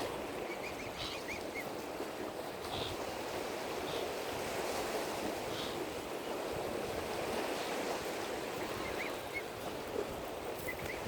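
Lake water lapping and wind in a steady wash of noise, with a few faint short high chirps about a second in and again near the end.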